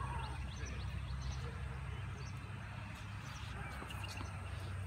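Steady low outdoor rumble with faint bird chirps scattered through it.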